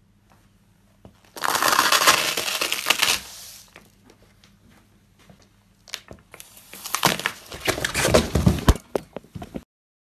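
A sneaker stamps on a block of dry instant ramen noodles, giving a loud dense crunch that lasts about two seconds. A few seconds later an apple is crushed underfoot, with crackling, sharp snaps and dull thumps as it squashes.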